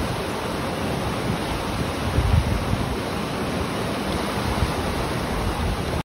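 Fast, turbulent mountain river rushing steadily over rocks, a continuous roar of water with a deep rumble underneath.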